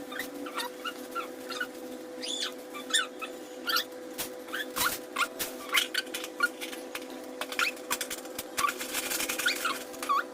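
A small animal whimpering in many short, high squeaks, over a steady hum.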